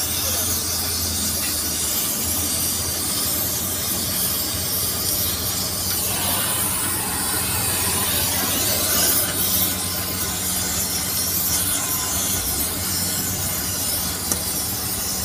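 Oxy-fuel gas cutting torch hissing steadily as its flame cuts steel, with a steady low hum underneath.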